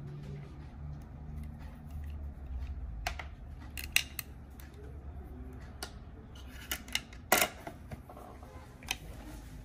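Scattered light clicks and taps of a pair of metal-framed eyeglasses being handled and set down on a tabletop, the loudest a short clatter about seven seconds in, over a low steady hum.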